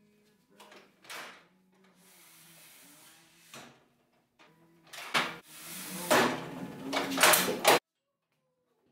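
Metal rails of a Bosch Reaxx jobsite table saw's table extension sliding and scraping as it is pulled out, with several rubbing slides and knocks. The loudest slides come near the end and cut off abruptly.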